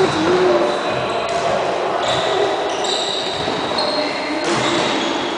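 Indoor futsal game in an echoing sports hall: a ball being kicked and bouncing on the hard court floor amid the shouts of the players.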